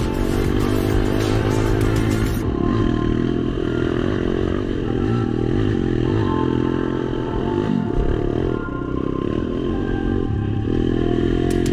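Pit bike engine running under riding load, its pitch rising and falling as the throttle is opened and closed.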